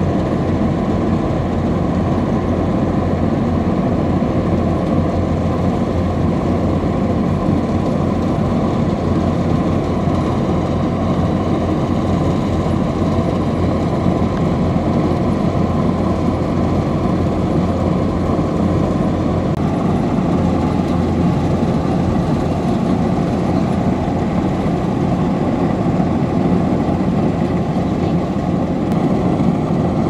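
Kubota DC-105X combine harvester running steadily as it harvests rice, its engine and threshing machinery making a continuous drone with a faint high whine.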